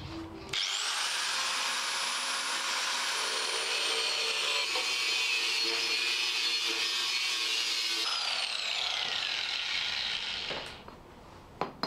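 Angle grinder with a cutting disc spinning up with a rising whine and cutting through a round steel tube. About eight seconds in it is switched off and its whine falls as the disc winds down.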